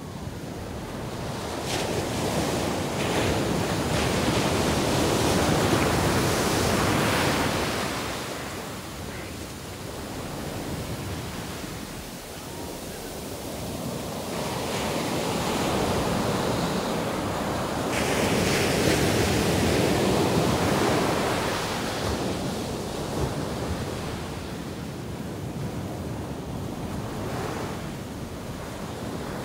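Arabian Sea surf breaking on a sandy beach: a steady rushing wash of waves that swells twice to a louder surge and eases back between.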